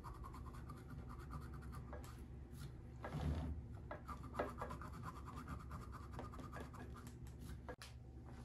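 Faint, rapid scratching as the sharp edges of a freshly drilled bowling ball's finger hole are worked back and forth by hand to bevel and smooth them. The strokes stop near the end.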